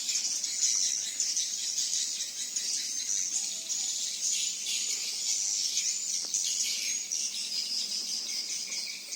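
A steady, high-pitched chirring of insects, with birds chirping over it.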